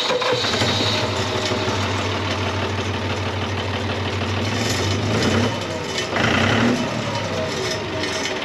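Engine idling steadily, with a brief louder, higher-pitched sound about six seconds in.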